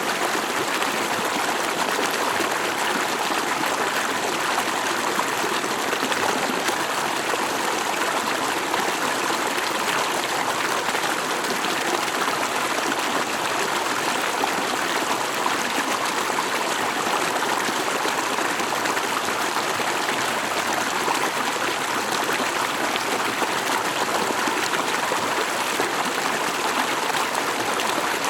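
Stream water flowing and burbling over rocks in a steady, unbroken rush.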